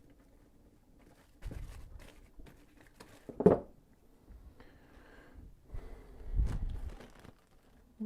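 Parts and packaging being handled: rustling with scattered clicks and knocks, the loudest knock about three and a half seconds in and another around six and a half seconds.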